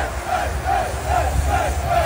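Stadium crowd noise mixed with music that has a quick, even pulse of about four beats a second.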